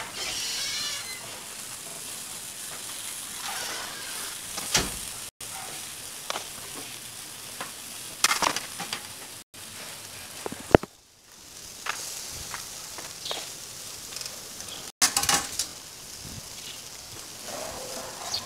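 Skewered chicken sizzling on a wire grill over charcoal: a steady hiss with scattered pops and crackles. The sound drops out briefly a few times.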